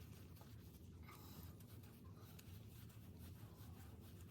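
Near silence, with faint light scraping and a few small clicks from small repair parts being handled.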